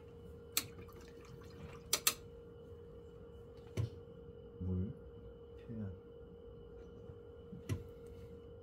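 A steady hum, broken by about five sharp clicks and taps of a paintbrush against the canvas and palette during oil painting.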